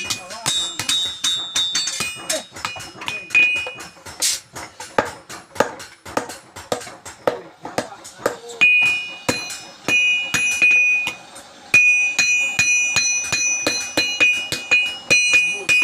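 Hammer blows on steel against an anvil, several a second and unevenly spaced, each with a high metallic ring.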